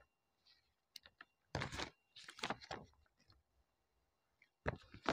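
Stiff printed paper packaging from a Jolo Chip box being handled and unfolded: a couple of faint clicks, then short bursts of crinkling and rustling about one and a half seconds in and again near the end.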